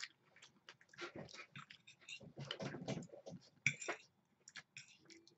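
Soft, irregular eating sounds: lo mein noodles being chewed, with a fork clicking and scraping on a plate.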